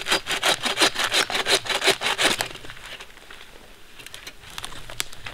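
Hand saw cutting through soft, rotten (punky) wood in quick, even back-and-forth strokes that stop about halfway through, followed by a few light clicks.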